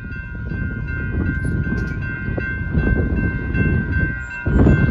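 Railroad grade-crossing warning bell ringing steadily while the gates are down and the lights flash, over a gusty low rumble of wind on the microphone.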